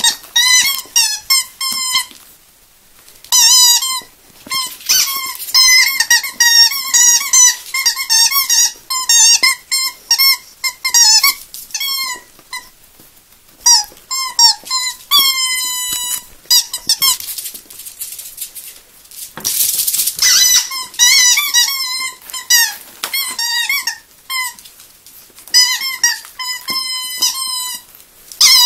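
Rubber squeaky dog toy squeaked over and over as a Yorkshire terrier bites and chews it. The squeaks come in quick runs broken by short pauses, and a few are drawn out and slide down in pitch.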